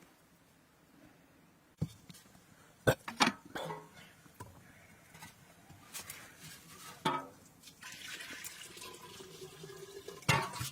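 Water sloshing and pouring, with several sharp knocks; the loudest knocks come about three seconds in and near the end, and a steadier pouring or splashing sound runs from about eight seconds in.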